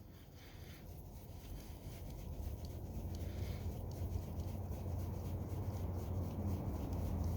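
Spinning reel's handle being screwed in and turned by hand: a low rubbing noise with faint ticks, growing gradually louder.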